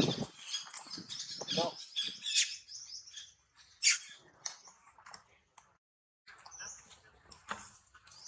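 Small birds chirping in quick, high calls, with a loud knock at the very start and a sharp click about four seconds in. The sound drops out for about half a second just past the middle.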